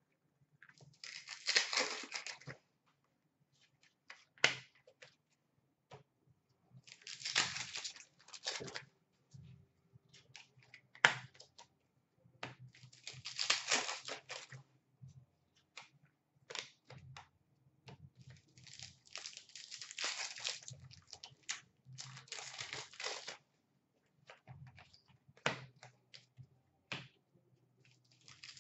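Trading card pack wrappers being torn open and crinkled in several bursts of a second or two, with short clicks and snaps of cards being handled and flicked in between.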